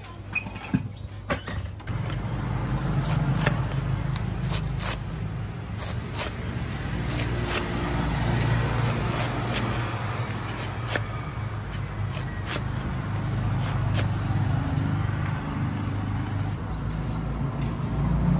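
Cleaver blade chopping and shaving the husk of a young coconut on a wooden chopping stump: irregular sharp knocks, often a second or less apart. Under them runs a steady low motor-like rumble.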